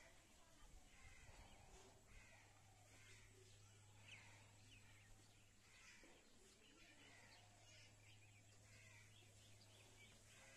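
Near silence: faint outdoor background with distant birds calling now and then over a steady low hum.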